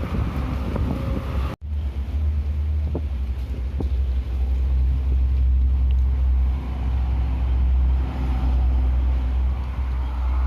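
Strong wind buffeting the microphone: a loud, steady low rumble with a hiss of gusting air, breaking off for an instant about a second and a half in.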